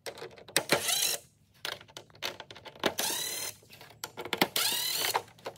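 Cordless driver backing out the screws of a Maxxair roof fan's housing in three short runs, its motor whine rising and falling with each screw.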